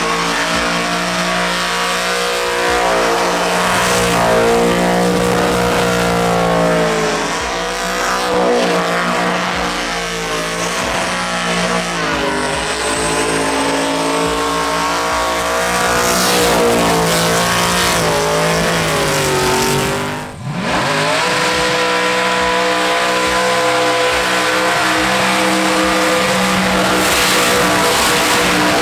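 A burnout car's engine held at high revs with the tyres spinning and squealing. About two-thirds of the way through, the revs fall away and cut out briefly, then climb back and hold steady again.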